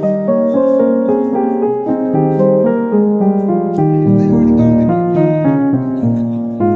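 Background music: a keyboard melody of held notes moving in steps over a bass line.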